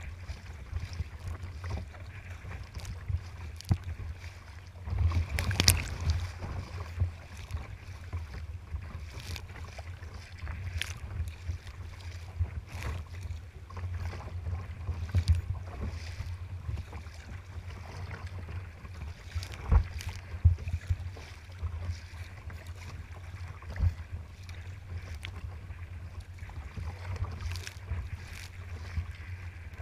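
Choppy waves slapping and splashing against a sea kayak's hull and paddle, in irregular bursts with louder splashes about five seconds in and again near twenty seconds, over a steady low rumble of wind on the microphone.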